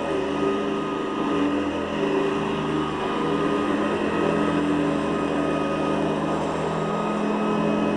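Hoover Guardsman commercial upright vacuum cleaner running steadily while being pushed over carpet, its motor hum shifting slightly in pitch now and then.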